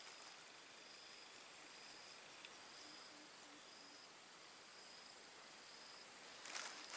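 Insects trilling: a steady, high-pitched chorus that dips slightly about three seconds in.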